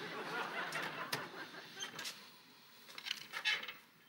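Studio audience laughter dying away after a joke, with a sharp click about a second in and a few short hissing sounds near the end.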